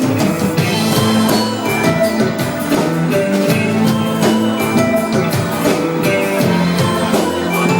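Instrumental pop band music: a drum kit keeps a steady beat under held melody notes, with no singing.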